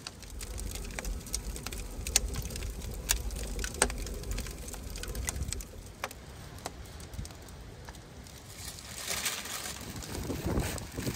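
Wood fire crackling in a brick oven, with scattered sharp pops over a low rumble. Near the end, parchment paper rustles as it is handled and laid over the pan.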